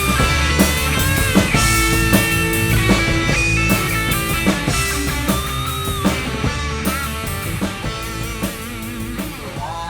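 Rock song with guitar and drum kit, its held, bending guitar notes over a steady drum beat, slowly fading out.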